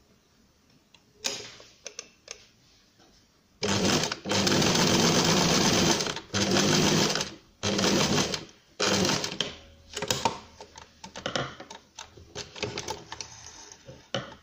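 Domestic electric sewing machine stitching felt, running in four bursts: the first about two and a half seconds long, the others about a second each. Lighter scattered clicks and ticks follow near the end.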